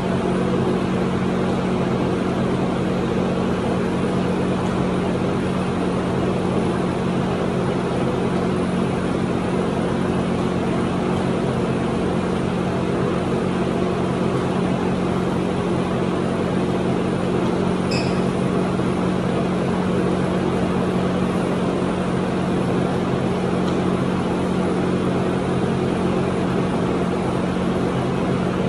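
Steady machine hum with a constant low drone, unchanging throughout, covering the sounds of the workout; a brief high chirp about halfway through.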